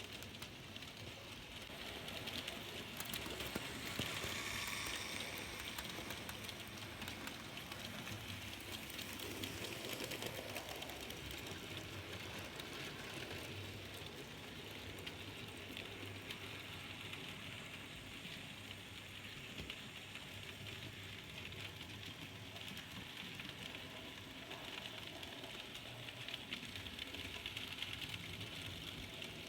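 N gauge model train running along the track: a steady, fine clicking rattle that swells slightly a couple of times.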